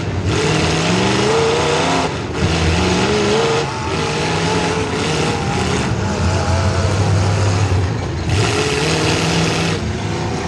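Demolition derby car's small-block Chevy V8 revving hard, its pitch climbing and dropping back several times as the throttle is opened and lifted.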